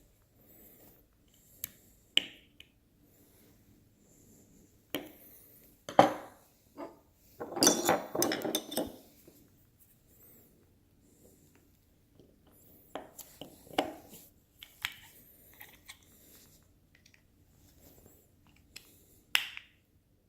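Scattered clicks and light metallic clinks of screwdrivers and small metal parts being handled while a Victor Exhibition phonograph reproducer is taken apart, with a busier run of knocks and rattles about eight seconds in.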